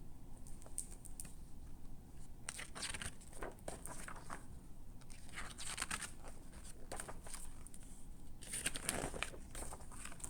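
Paper rustling and crinkling in a run of short rustles, as the pages of a picture book are handled and turned.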